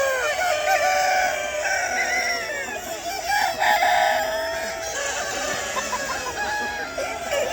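A flock of chickens calling over one another: roosters crowing among clucks and squawks, many calls overlapping.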